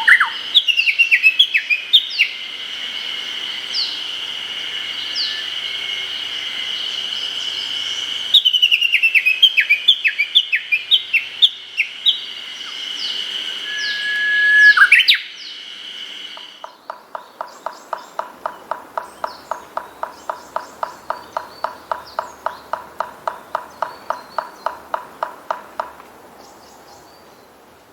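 Japanese bush warbler singing. First come its song phrases, a held note sliding up into quick falling notes, twice. Then, for about ten seconds, a fast run of repeated notes at about four a second, which is its tani-watari ('valley-crossing') call.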